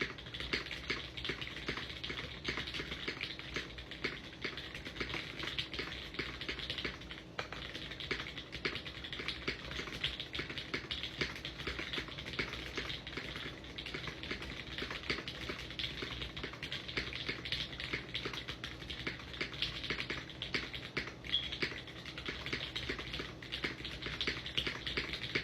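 Continuous fast typing on an MC65 mechanical keyboard: a dense, unbroken run of key clicks and clacks.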